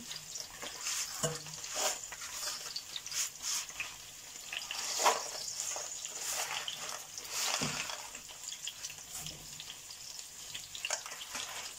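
Sliced zucchini, onion and peppers sizzling in a frying pan with irregular crackles, beside a pot of water at the boil. A few louder knocks and rustles come from handling a box of spaghetti.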